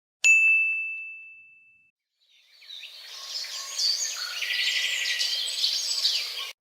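A single bright ding that rings out and fades over about a second and a half. After a short gap, birds chirping fade in, many overlapping calls, and stop suddenly at the end.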